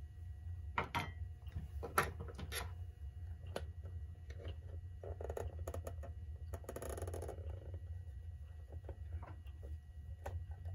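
Handling noises as the back cover of an old synchronous electric clock is worked loose: scattered clicks and light knocks, with two short scraping, rustling stretches about five and seven seconds in, over a steady low hum.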